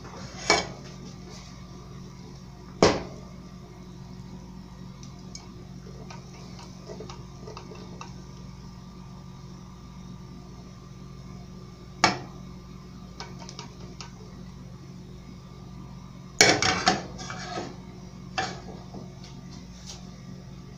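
Stainless steel pot knocking and clinking against the gas stove grate as it is tilted and handled: a few single sharp knocks spaced well apart, then a quick cluster of clinks near the end. A steady low hum runs underneath.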